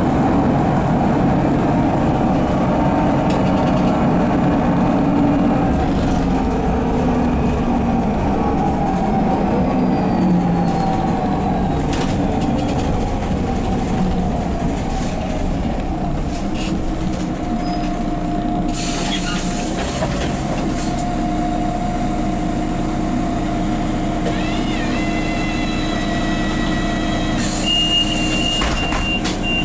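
Solaris Urbino 12 city bus heard from inside the passenger cabin, its 9.2-litre DAF PR183S3 diesel running as the bus drives, the engine note falling in the first third. About two-thirds in, a loud hiss of compressed air begins, and another comes near the end with a brief high beep.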